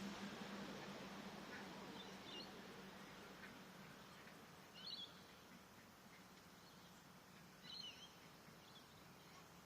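Faint, scattered bird chirps over quiet outdoor background noise: a few short high calls, the clearest about halfway through and again a few seconds later.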